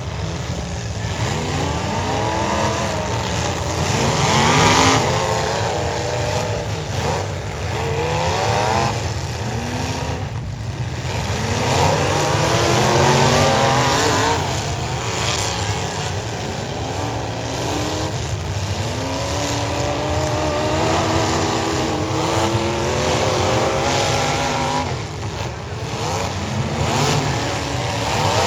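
Demolition derby car engines revving hard, several at once. Their pitches climb and drop again and again as the cars accelerate and back off.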